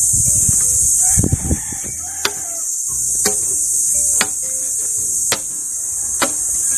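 Steady high-pitched insect chorus, with a sharp click about once a second from about two seconds in.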